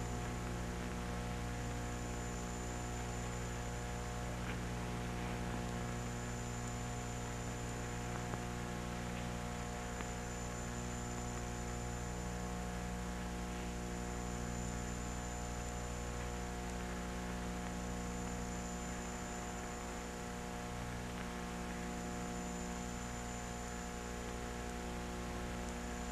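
Steady electrical mains hum with hiss from an old documentary soundtrack, plus a thin high whine, during a silent passage; a faint click or two.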